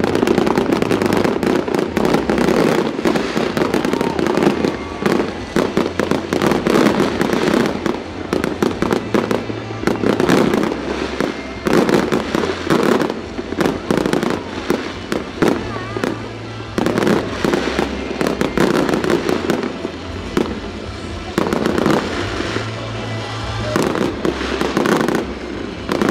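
Fireworks display: many aerial shells bursting with rapid bangs and crackling, dense throughout. Music plays along with the display underneath.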